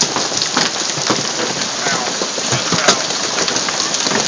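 Heavy hailstorm: a dense, steady hiss of hail coming down, with many sharp cracks of large hailstones striking the ground and hard surfaces.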